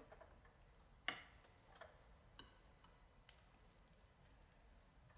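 Quiet clinks and taps of cutlery against plates, a few scattered clicks with the loudest about a second in.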